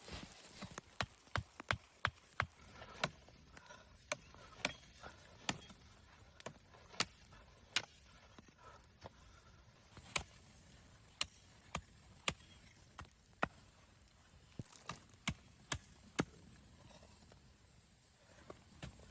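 A series of sharp, irregular knocks, roughly one or two a second, stopping about three seconds before the end.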